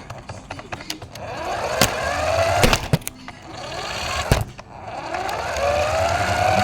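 RC car's motor whining and rising in pitch as it speeds up, easing off, then speeding up again, with a few sharp knocks in between.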